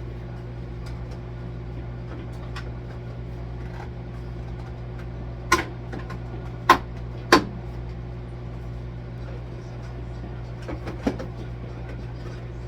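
Microwave oven running with a steady hum. Three sharp knocks of objects being handled come a little before the middle, with a few fainter taps near the end.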